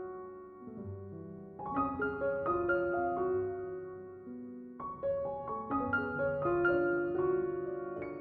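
Background piano music: a slow, gentle melody of single notes over soft chords.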